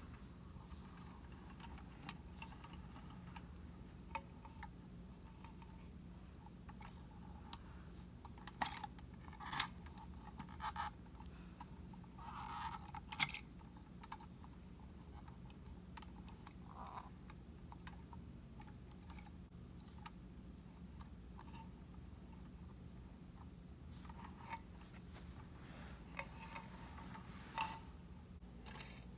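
Scattered small plastic clicks and clatters from a toy front-load garbage truck's forks raising and tipping a miniature dumpster, the loudest cluster in the middle, over a faint steady hum.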